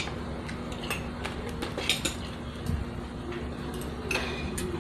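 Spoon and fork clinking and scraping against plates while eating, a scattering of light irregular clicks.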